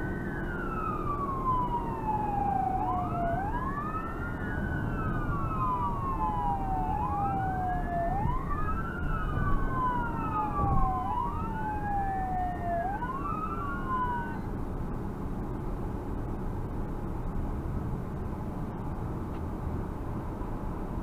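Emergency vehicle wail siren sweeping slowly up and down, about one cycle every four seconds, over the steady road and engine noise of the vehicle driving. The siren cuts off about two-thirds of the way through, leaving only the road noise.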